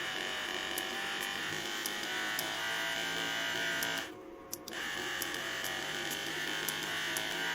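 Chigo massage gun's motor running with a steady buzz, stopping for under a second about four seconds in and then starting again. It is running normally on its rebuilt battery pack after having shown no response.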